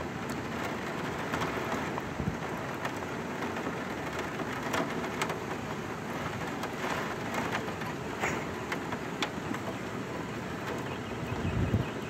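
Rain from a severe thunderstorm falling in a steady hiss, with scattered sharp ticks of drops striking nearby surfaces; a low rumble swells near the end.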